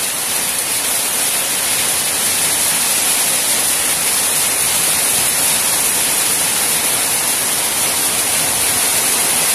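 Rain pouring steadily, a loud, even hiss.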